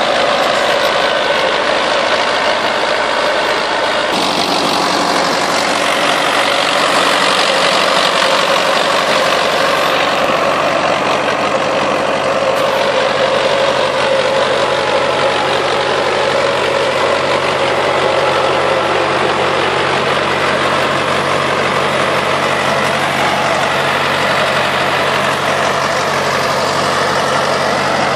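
Lamborghini tractor engine running steadily under load while pulling a two-furrow mouldboard plough through soil.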